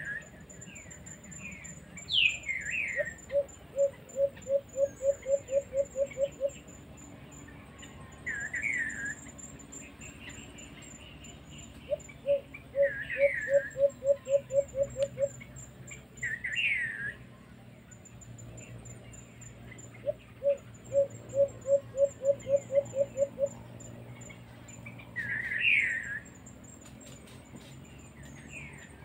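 Alimukon dove giving three runs of low cooing notes, each run about a dozen quick, evenly spaced notes. Short falling chirps from other birds come between the runs, over a faint, steady high insect whine.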